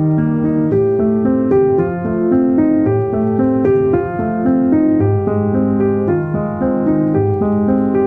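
Background music: a keyboard melody of steady sustained notes moving at an even pace.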